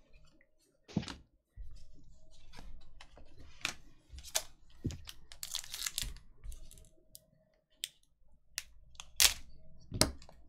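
Hockey trading cards being handled and a foil card pack being opened by hand: scattered sharp clicks of card stock, with short bursts of crinkling and tearing from the foil wrapper.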